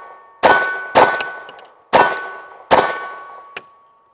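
Four shots from a Kahr Arms CM9 9mm pistol, the first two close together, all within about two and a half seconds. Each shot is followed by a metallic ring, from the steel target being hit, that lingers after the last shot. A short faint click comes near the end.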